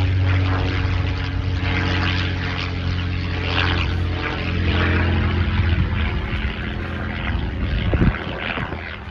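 Propeller aircraft flying overhead: a steady, low engine drone.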